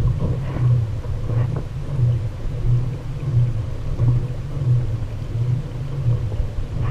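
Low, even rumble from a kayak moving over choppy water, heard through an action camera, with wind and water against the hull. It pulses about one and a half times a second.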